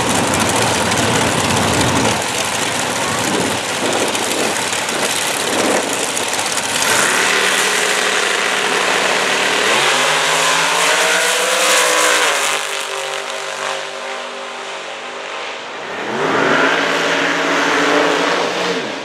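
Two Top Dragster race cars' engines running loud at the starting line, then launching and accelerating hard down the drag strip. The engine pitch climbs, holds briefly, then climbs again.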